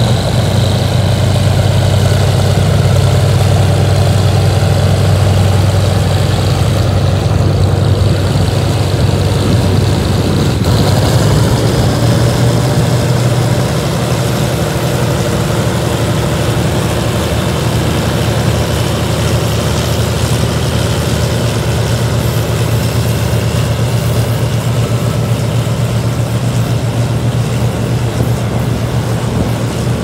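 GE diesel-electric locomotive (SRT GEK class) under heavy throttle, pulling a passenger train away, a loud, steady, deep engine drone. The loudness eases a little about halfway through as the locomotive passes and its coaches roll by.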